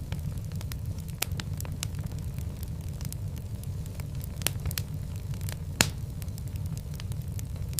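Wood fire in a fireplace crackling, with frequent sharp pops and snaps over a steady low rumble of flames; the loudest pop comes about six seconds in.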